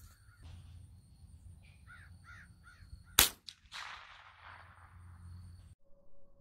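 Crows cawing, four quick caws about two seconds in, then a single sharp shot from a Walther Hammerli TAC R1 .22 LR semi-automatic rifle about three seconds in, the loudest sound, trailing off in echo.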